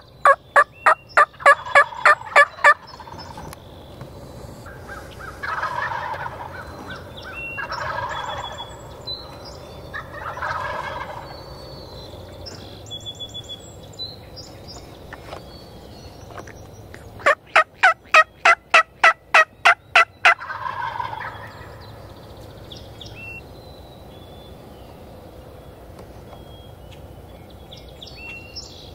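Wild turkey calling: a loud run of about ten evenly spaced yelps at the start, answered by three softer gobbles from a tom, then a second run of yelps about two-thirds through, followed by one more gobble. Faint songbird chirps run underneath.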